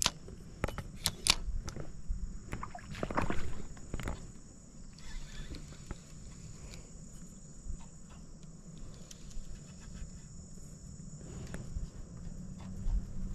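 A run of sharp clicks and knocks in the first four seconds from a spinning reel and rod being handled, over a steady high-pitched insect drone.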